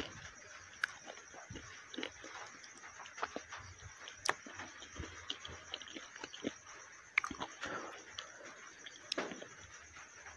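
Close-miked eating sounds from saucy masala chicken wings and chips: wet chewing and lip smacking, with irregular sharp clicks.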